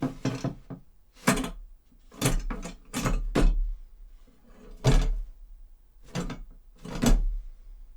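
Foley performance of a rail handcar being pushed and pulled: a run of about eight irregular heavy clunks and knocks, each with a low thud and a short rattle.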